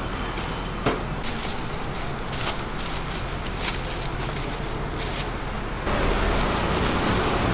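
Thin plastic food bags crinkling and rustling in short crackles as bagged dumplings are handled and stacked, over a steady hum of street traffic that grows louder about six seconds in.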